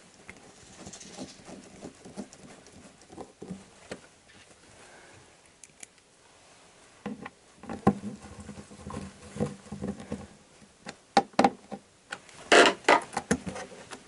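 Screwdriver and fingers working at a plastic twin USB and cigarette-lighter socket panel while it is screwed to a wooden cupboard side: irregular small clicks, scrapes and knocks. The sounds grow busier in the second half, with the loudest run of knocks and rubbing near the end.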